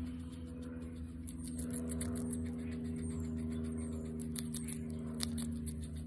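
Guinea pig biting and chewing a slice of raw red bell pepper close to the microphone: rapid, crisp crunching and wet clicking of its teeth through the pepper flesh, with two sharper crunches near the end. A steady low hum runs underneath.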